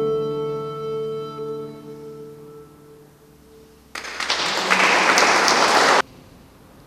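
Recorder and guitar holding a final chord that fades away, then about two seconds of audience applause starting about four seconds in and cutting off abruptly.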